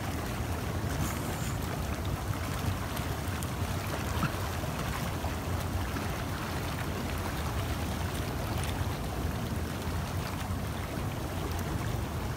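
Hot tub jets running, the water bubbling and churning in a steady rush.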